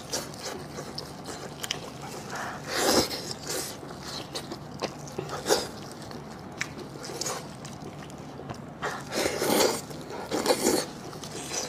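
A person eating close to the microphone: bites and chewing in scattered short bursts, with a few sharp clicks, the busiest stretch near the end.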